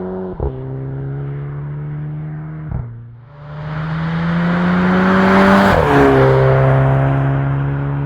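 Volkswagen 1.4 TSI turbocharged four-cylinder engine with a Bull-X aftermarket exhaust, accelerating through the gears of its DSG gearbox. Three upshifts, about half a second in, near three seconds and near six seconds, each drop the engine note with a short sharp crack, the "DSG fart". After a brief lull around three seconds, the engine pulls harder and louder, rising in pitch up to the last shift.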